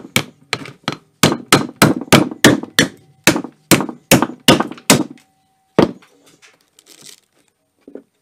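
Hammer blows in a quick, even run, about three a second, knocking at the refrigerator compressor's air intake to pry it off. The blows stop about five seconds in, with one last strike near six seconds, then light handling noise.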